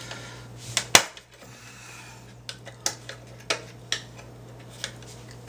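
Small parts of an RC car's front suspension clicking and tapping as an upper arm is fitted by hand: one sharp click about a second in, then scattered lighter clicks.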